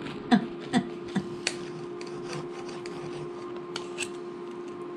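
Table knife sawing through the crisp crust of an air-fried calzone, with sharp clicks of the knife and fork against a ceramic plate, most in the first second and a half. A steady hum runs underneath.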